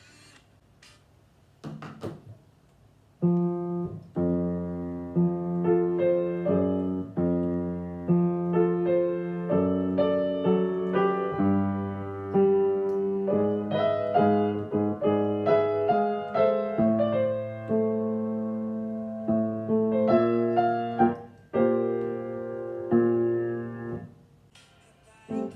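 Solo piano playing a pop melody over chords, improvised by ear. It starts about three seconds in after a single earlier note and stops shortly before the end.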